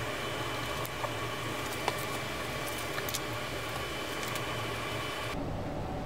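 Steady background hiss with a faint hum and a few light clicks; the hiss drops away suddenly about five seconds in.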